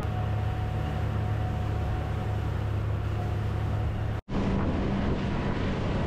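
Motorboat engine running steadily at speed, a low drone, with water rushing past the hull. The sound cuts out for an instant about four seconds in, then resumes.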